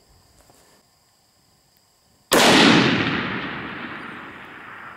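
A single shot from a Thompson/Center Venture rifle in .300 Win Mag with a clamp-on muzzle brake, fired a little over two seconds in. A sharp crack is followed by a long echo that dies away slowly over the next few seconds.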